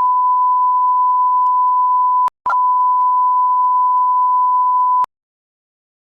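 A steady, single-pitched electronic beep tone, a broadcast-interruption test tone that breaks off briefly about two seconds in and then resumes. It cuts off abruptly with a click about five seconds in.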